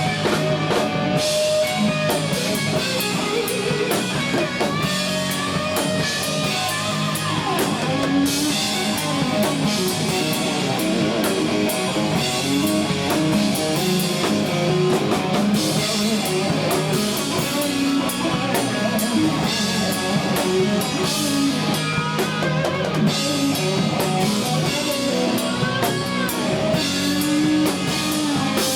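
Live blues-rock band playing: electric guitar lines with bent notes over a drum kit.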